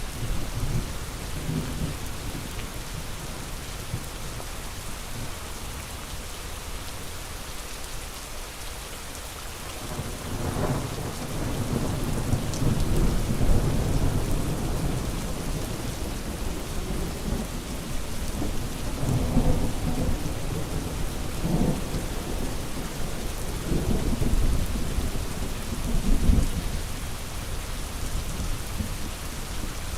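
Steady rain hissing, with rolling thunder. The thunder is faint for the first third, then comes in as a series of low rumbles that swell and fade through the rest.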